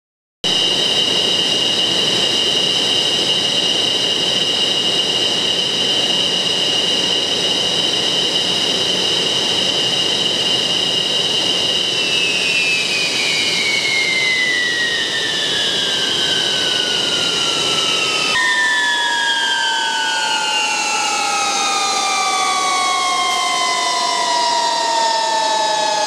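MiG-29's twin Klimov RD-33 turbofan engines running at idle with a steady high whine, then shut down: about halfway in the whine starts falling steadily in pitch as the engines spool down. About two-thirds of the way in the sound jumps abruptly and the low rumble drops away, and the falling whine carries on.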